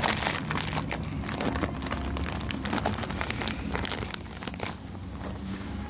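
Packaging being handled and opened: a run of crinkling and rustling with many small crackles, busiest at first and thinning out near the end.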